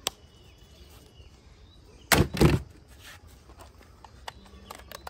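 Plastic toys being handled: a few sharp clicks, then a loud double knock about two seconds in, followed by scattered faint clicks.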